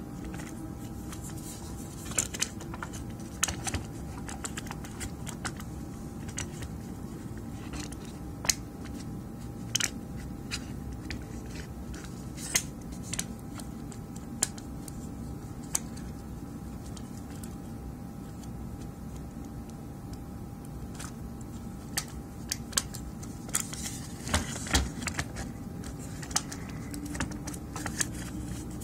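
Scattered clicks, taps and light clattering of plastic and metal console parts being handled and fitted together, with a busier stretch near the end, over a steady low hum.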